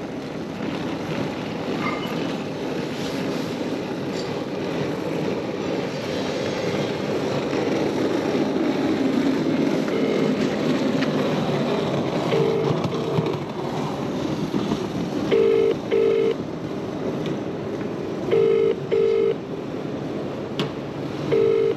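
UK telephone ringback tone: paired rings repeating about every three seconds, starting about ten seconds in, over steady background noise. The call rings on unanswered.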